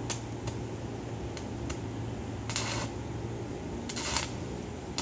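Electric arc welder in use: the welding machine hums steadily, and two short crackling hisses of the arc come about halfway through and again near the end, as the piece is tack-welded.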